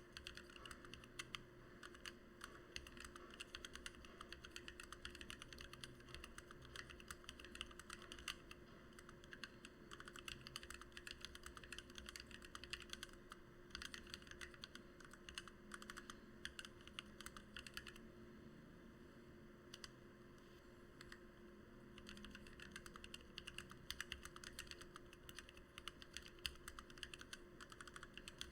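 Rapid, continuous typing on a Lily58 mechanical keyboard with lubed and filmed Gateron Black Ink V2 linear switches under PBT OEM-profile keycaps. It slows to sparser keystrokes for a few seconds about two-thirds of the way through, then picks up again.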